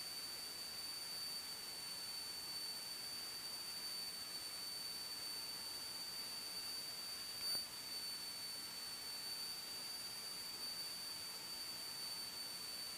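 Faint steady hiss of an aircraft headset intercom recording feed with a thin, steady high-pitched tone over it, and a brief soft blip about seven and a half seconds in.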